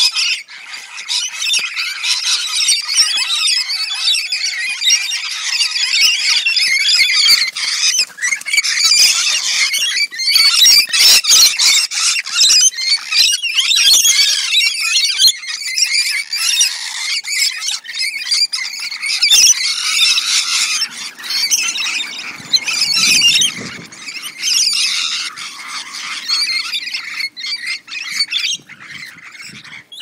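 A group of lorikeets fighting, keeping up a continuous harsh, high-pitched screeching and squawking that thins out near the end.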